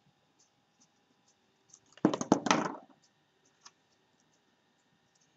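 Hands handling paper and craft supplies on a wooden table: a dense burst of rustling and small knocks lasting just under a second, about two seconds in, with faint light ticks of handling before and after.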